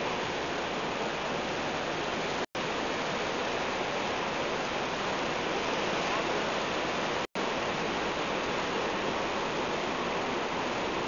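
Steady rushing noise, like water or wind, that cuts out for an instant twice.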